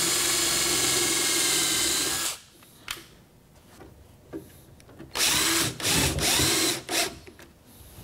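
Cordless drill driving screws into a pine board: the motor runs steadily for about two seconds and stops, then after a pause with a few small clicks it runs again in two short spurts and a brief blip near the end.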